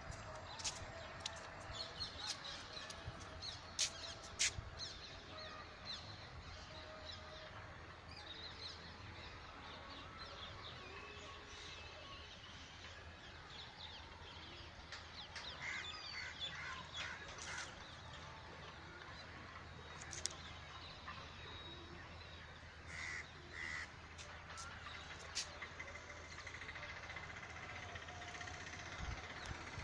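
Outdoor birds calling, short calls and chirps scattered throughout, a few louder calls about two thirds of the way in, over a faint steady low hum.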